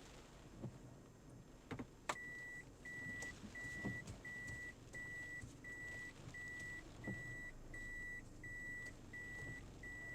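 An electronic warning beeper sounding a single high beep over and over, about twice a second. It starts about two seconds in, just after a couple of clicks.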